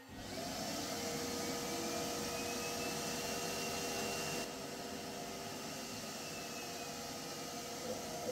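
Dust-extraction vacuum running steadily, drawing air through a CNC router's dust shoe, with faint steady tones underneath. The hiss starts abruptly and drops a little in level about halfway through.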